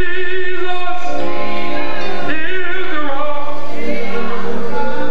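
Gospel singing: a male voice sings into a microphone in long held phrases that bend and waver in pitch, over a steady music backing.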